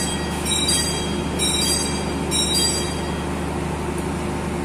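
Steady low rumble and hum of a diesel passenger train idling at a station platform. A short high chirp repeats about once a second for the first three seconds or so.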